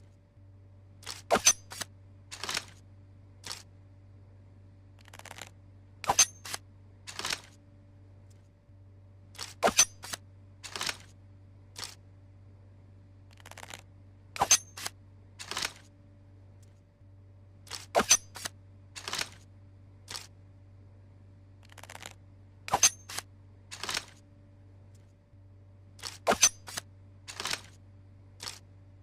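Tanto dagger handling clicks: sharp, bright clicks in groups of two or three, the groups coming about every four seconds, over a low steady electrical hum.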